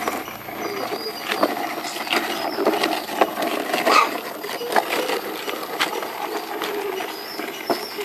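Plastic toy dump truck pushed over gravelly dirt: its hard wheels crunch and rattle over the grit, with many small irregular clicks and knocks from stones and the plastic body.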